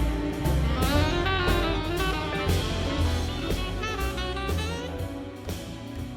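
Background music, jazz with a saxophone-like lead over a drum kit, slowly fading out.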